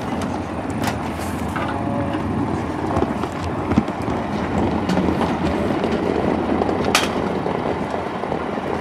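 Parked coach's engine running steadily, a low rumble with a few sharp clicks or knocks over it.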